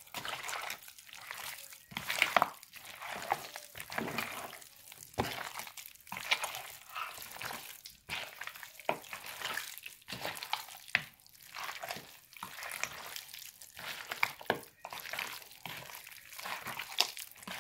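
Raw deer meat chunks being mixed and squeezed by hand in a plastic bowl to coat them with spices. The meat makes irregular wet squelching and slapping sounds, several times a second, with no steady rhythm.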